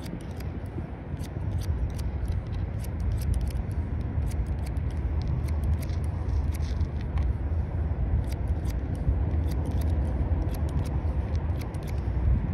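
Barber's scissors snipping hair cut over a comb: many quick, crisp snips in irregular runs, over a steady low rumble.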